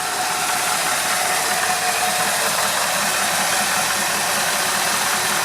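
Carbureted 302 (5-liter) V8 of a 1978 Ford Mustang II King Cobra idling steadily.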